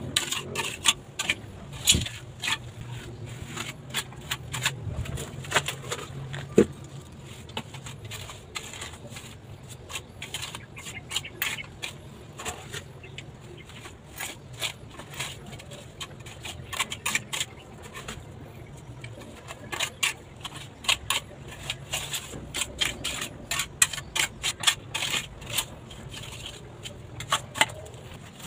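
Steel pointing trowel scraping and tapping on wet mortar over a concrete step: irregular runs of short scrapes and clicks as the mortar is spread and smoothed.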